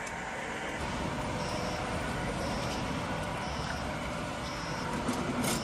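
Small single-cylinder petrol engine of a remote-control lawn mower running steadily, with a short high double beep repeating about once a second.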